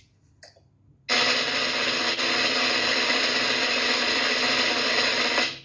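Loud, steady machine-like buzzing whir, a recorded sound effect played over the stage speakers. It switches on abruptly about a second in and cuts off just as abruptly near the end.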